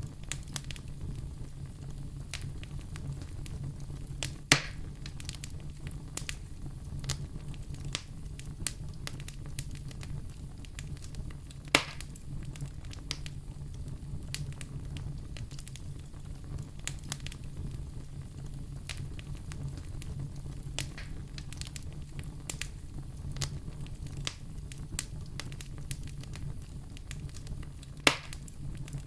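Wood fire in a fireplace crackling steadily over a low rumble, with many small snaps and three louder pops: about four seconds in, near twelve seconds, and near the end.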